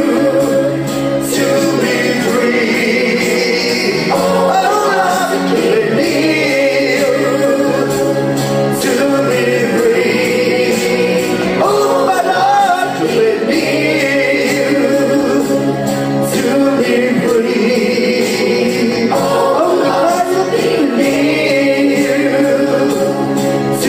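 A man singing live into a microphone over a karaoke backing track, in sustained phrases with short breaks between lines.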